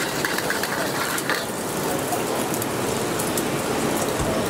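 Beaten egg sizzling and crackling in hot oil in a steel wok, with a metal spatula scraping and stirring it for the first second or so, then steady sizzling.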